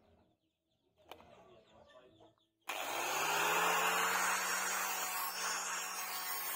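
Faint handling clicks as a sanding pad is fitted to an electric angle grinder, then about two and a half seconds in the grinder switches on, its motor hum rising as it spins up and then running steadily with a loud hiss as the pad sands a wooden knife handle.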